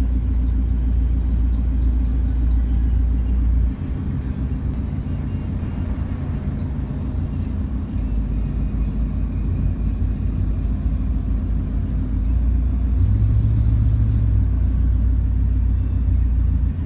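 Large diesel truck engine running close by amid traffic, a steady low rumble that eases slightly about four seconds in and swells again near the end.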